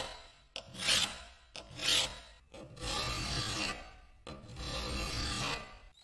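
Hand file rasping across the edge of a cast vise body in push strokes: three short strokes about a second apart, then two longer, quieter strokes.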